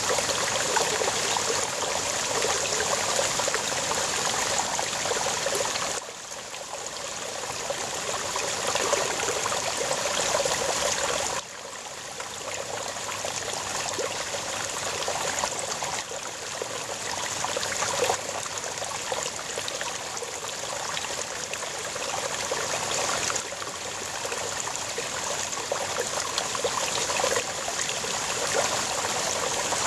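Small brook babbling and splashing over rocks in a steady wash of water noise. The level drops suddenly a few times, about six, eleven and twenty-three seconds in, and builds back up.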